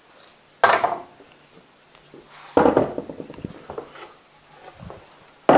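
Clamps and a wooden fence board being handled on a plywood crosscut sled: three sharp clattering knocks, about a second in, near the middle and near the end, each dying away quickly.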